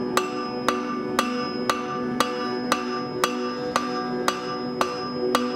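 Hand hammer striking a red-hot 3/8-inch steel rod on an anvil at an even pace of about two blows a second, tapering it. Steady metallic ringing carries on under the blows.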